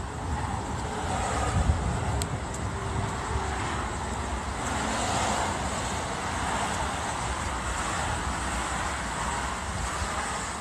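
Road traffic: cars going by in a steady wash of tyre and engine noise, swelling a little about halfway through and again near the end.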